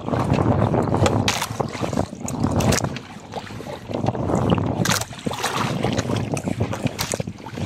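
Wind buffeting the microphone and sea water washing against a small outrigger fishing boat, with scattered short knocks and rustles from a gill net being handled.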